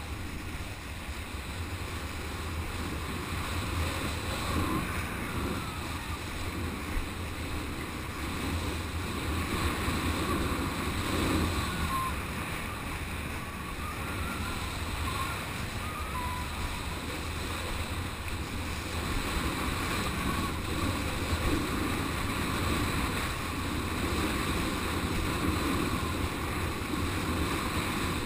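Wind buffeting the microphone of a rider-mounted action camera, with water rushing and splashing under a kiteboard as it rides across shallow water; the noise is steady, swelling and easing slightly.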